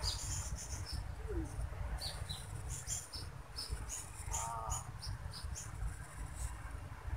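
Outdoor insect buzz, a steady high drone, with many short high chirps scattered irregularly and one brief wavering lower call about midway, over a low rumble.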